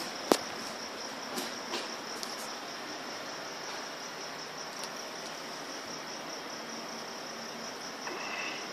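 Crickets trilling steadily, one unbroken high-pitched tone. A single sharp click sounds about a third of a second in.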